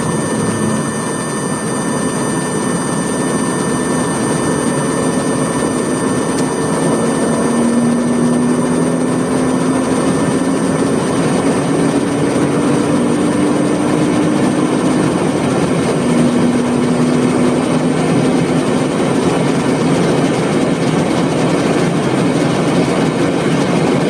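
1981 Porsche 911SC's air-cooled flat-six running hard under acceleration, heard from inside the cabin over steady wind and road noise. Its pitch climbs, drops at a gear change about 15 seconds in, then carries on.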